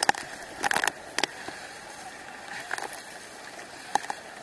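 Water splashing in short, sharp slaps, about five of them, with the two loudest about a second in and near the end, over a steady rush of water noise.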